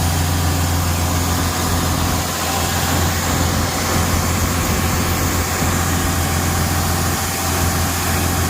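Heavy farm vehicle's diesel engine running at a steady speed, a constant low drone.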